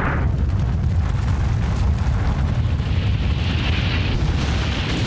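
Low, sustained rumble of a huge bomb explosion, a cinematic blast effect, with a rushing hiss that swells about three to four seconds in.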